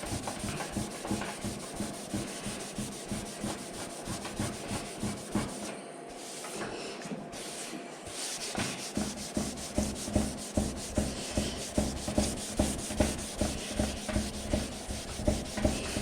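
Abrasive paper rubbed by hand over the painted surface of a scooter side panel in short back-and-forth strokes, about two or three a second, knocking down raised spots in the fresh paint. The strokes pause briefly about six seconds in, then resume harder and more evenly.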